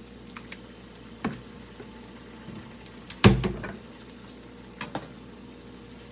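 Kitchen clatter at the stove: a few light clicks and knocks of a seasoning jar and a cooking utensil against pans and the stovetop, with one much louder knock about three seconds in, over a faint steady hum.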